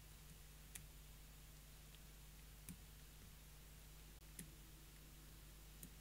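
Four faint, sharp clicks from the pins of a seven-pin Fontaine pump lock being pushed and tapped with a slider pick under tension, roughly one every one and a half to two seconds. The pins have to be tapped a couple of times before they set, which the picker puts down to worn or tapered pins.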